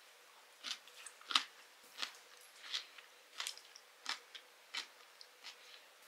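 Eating ramen noodles: a regular run of short, quiet chewing and slurping noises, about one every two-thirds of a second.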